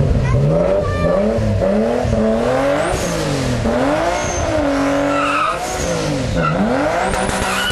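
Rally car engine revved up and down several times while the car stands still, held high for about a second midway. Near the end a tyre squeal starts as the driven wheel begins to spin on the cobblestones.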